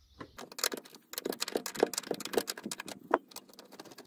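Rapid small metallic clicks and clinks of a 10 mm spanner turning a body earth bolt, with a few sharper knocks, one in the middle and one near the end.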